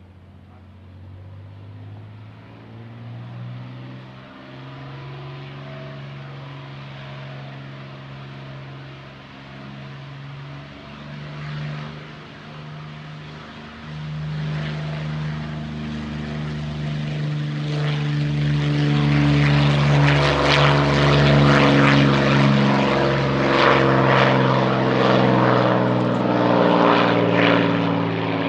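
Ilyushin IL-2 Sturmovik's Allison V-1710 V-12 engine and propeller at takeoff power as the aircraft rolls down the runway and lifts off. The engine note grows steadily louder, with a jump about halfway through, and is loudest about two-thirds of the way in.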